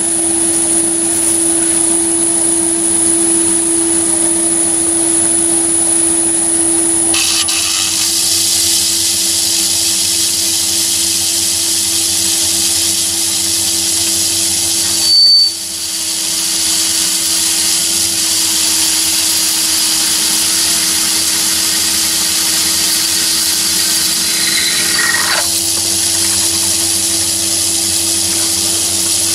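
Myford lathe running with a steady hum while a flat-bottom drill bores into an aluminium bar. About seven seconds in, the sound turns louder and hissier, and about halfway through there is a brief high squeal.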